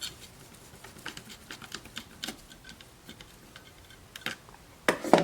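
Scattered small clicks and ticks of a screw being driven and plastic recorder casing parts being handled, with a couple of louder knocks near the end.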